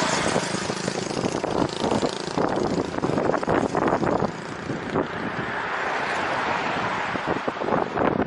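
Riding noise from a bicycle-mounted camera: wind rushing over the microphone and road and traffic noise, with a rapid rattling clatter of knocks as the bike runs over the road surface.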